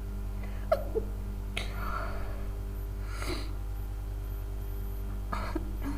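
A woman's short breathy gasps and a half-stifled sneeze attempt, heard as several brief separate bursts with a sharp click a little under a second in. A steady low hum runs underneath.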